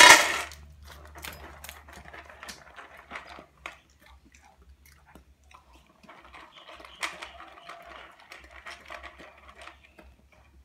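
Black Labrador eating dry kibble from a bowl: irregular crunching and chewing with small clicks of kibble, after a loud clatter right at the start.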